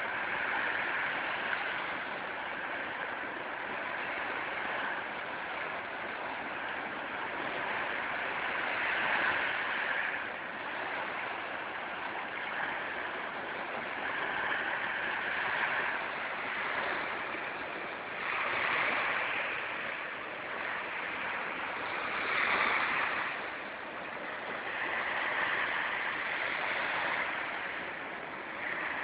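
Sea waves washing in: a continuous rush of water that swells and eases every few seconds as waves break.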